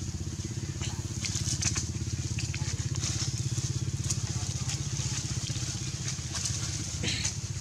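Leaves rustling and crackling in short bursts as macaques climb and tug on a leafy hanging branch, with a louder burst about seven seconds in. Underneath runs a steady low hum with a fast, even pulse, like an idling engine.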